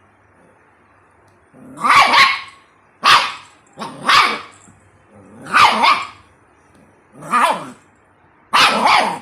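Puppy barking in play: about six separate, loud barks spread over several seconds, after a quiet start.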